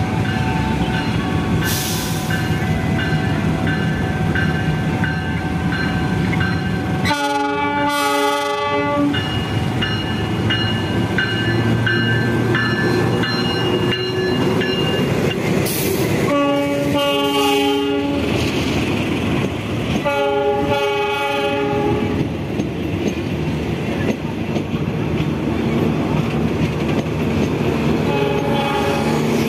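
A diesel locomotive pulls a passenger train past with its engine running. It sounds its multi-tone horn in several short blasts, about a quarter of the way in, twice more past the middle, and faintly near the end. The wheels click over the rail joints as the coaches roll by.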